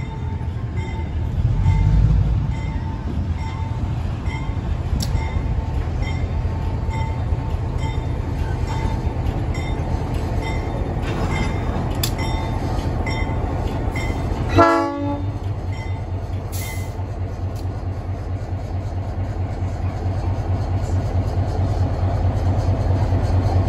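Diesel switcher locomotive drawing slowly up to a station platform with a steady low engine rumble that grows as it nears. A bell dings steadily about one and a half times a second through the first half, and one short horn blast sounds about 15 seconds in.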